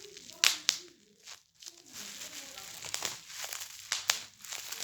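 Sharp plastic pops with crinkling between them, from an anti-stress popping toy being squeezed: two loud pops early on, a short lull, then a run of further pops.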